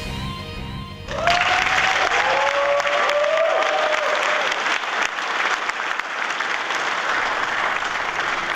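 Crowd applause and cheering break out suddenly about a second in, with a few whoops over the next few seconds, and run on steadily. A short tail of music is heard before it.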